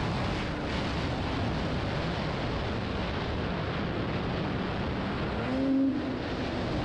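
Snowmobile running steadily along a trail at speed, a continuous rushing drone. A little after five seconds in, the engine note rises briefly and falls back.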